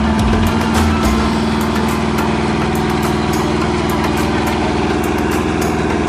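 Iseki combine harvester's diesel engine running steadily while the machine stands still, with a fast mechanical clatter over the engine note.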